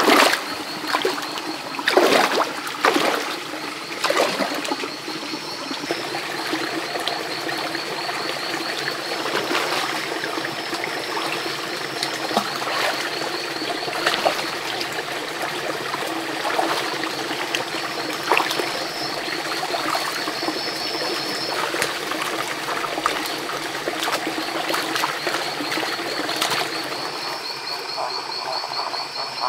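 Feet and legs splashing into a shallow stream, with several loud splashes in the first four seconds, then trickling stream water with small splashes of wading. A high, rapidly pulsing call comes and goes in the background.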